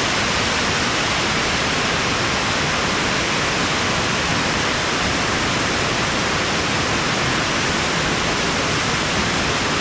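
Steady rushing of a waterfall and the water below it, an even loud roar with no breaks.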